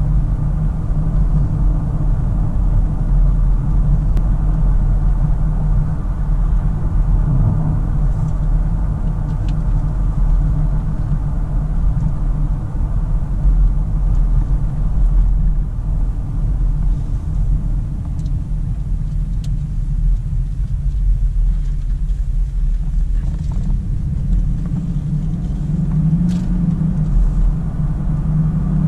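Cabin noise of a 1996 Mercedes-Benz S420 on the move: its V8 engine and the tyres make a steady low rumble. The engine note rises slightly near the end.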